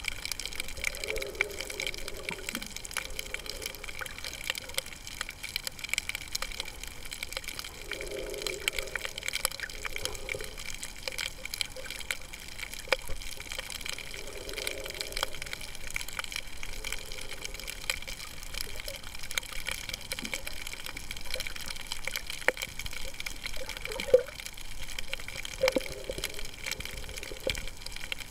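Underwater sound on a coral reef: a steady crackle of short clicks, with a burst of bubbling about every six or seven seconds, typical of a diver's exhaled breath, and a couple of sharper pops near the end.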